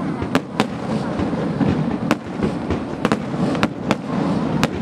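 Fireworks display: aerial shells and low-level effects bursting in a rapid, uneven series of sharp bangs, about eight in under five seconds, over a continuous rumbling din from the show.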